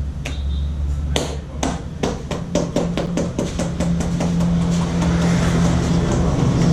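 A barber's hands tapping and slapping on a head in a percussive head massage: a run of sharp strokes that speeds up from about a second in. A steady low hum underneath grows louder in the second half.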